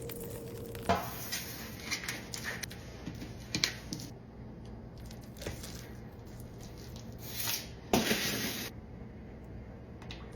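Kitchen handling sounds while making focaccia: scattered taps and clicks, with a short hissing rush lasting under a second about eight seconds in.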